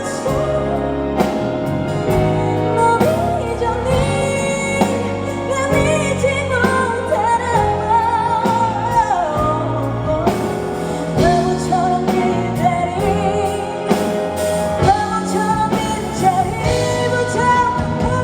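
Live pop ballad played loud through a concert PA, a band backing a sung melody line.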